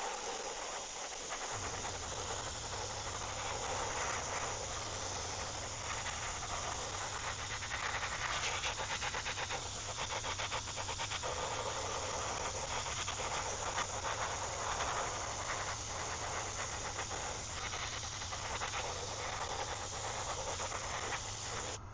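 Airbrush spraying a ground coat onto a 3D-printed fishing lure blank: a steady hiss of air and paint, with small changes in strength as the spraying goes on. A low steady hum joins in about a second and a half in.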